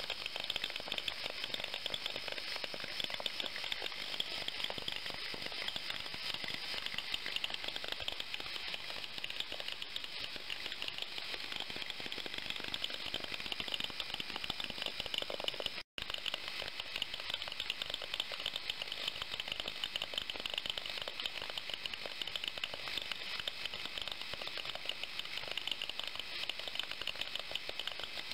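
Ultrasonic cleaning bath running with water circulating through it and overflowing: a steady, fast crackling hiss of cavitation in the agitated water. It cuts out for an instant about sixteen seconds in.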